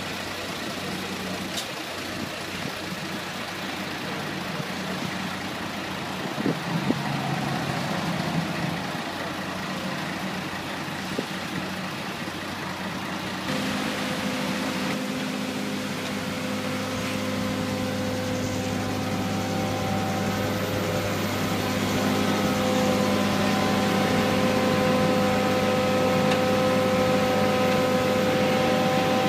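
Diesel engines of road-paving machinery running steadily: a Vögele asphalt paver and tipper trucks idling. About halfway in, the sound changes to the paver's engine close by, a steady hum with several held tones that grows louder toward the end.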